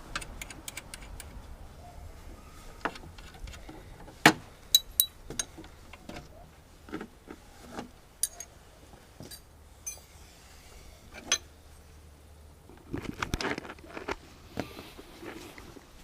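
Scattered metallic clicks, clinks and knocks of hand tools working on the engine's alternator belt and tensioner roller, with the engine stopped; the loudest single knocks come about four and eleven seconds in, and a cluster of clatter follows near the end.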